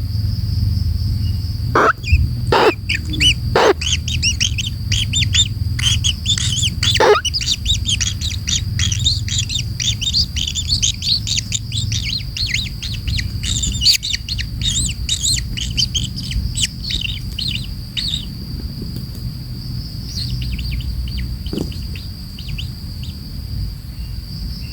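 Kingfisher giving rapid, shrill chattering calls in dense series, thinning out after about 18 seconds, over a steady high whine and low background rumble.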